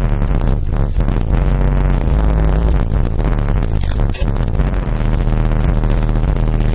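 Loud bass-heavy music played through a Sound Splinter RL-p 12-inch car subwoofer in a ported box tuned to 32 Hz, with held deep bass notes that change pitch every second or so.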